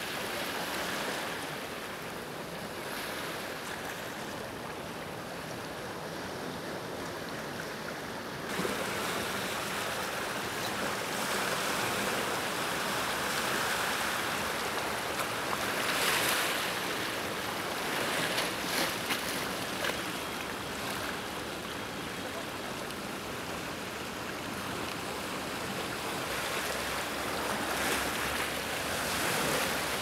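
Sea waves breaking and washing up the shore: a continuous rush of surf that swells and ebbs, a little louder from about eight seconds in.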